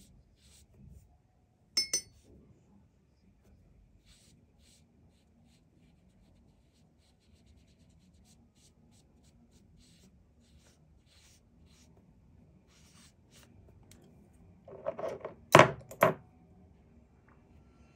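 Faint dabbing and scratching of a paintbrush on paper, with a sharp click about two seconds in. Near the end there is a short cluster of loud knocks and clatters of hard objects handled on the table.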